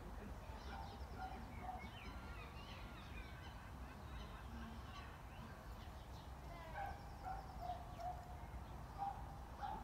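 A dog whining in short, repeated high whimpers, coming thicker in the second half, over a low rumble of wind, with small birds chirping faintly.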